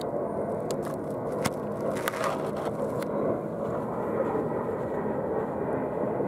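O gauge model train running along garden railway track: a steady rolling rumble of wheels on rails, with several sharp clicks in the first few seconds.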